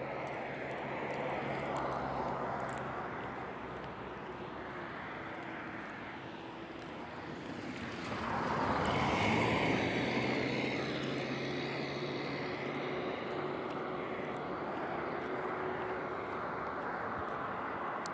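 Steady engine hum and tyre and road noise from a vehicle moving along an asphalt road. Another car passes close by about eight seconds in, making the loudest moment, then fades.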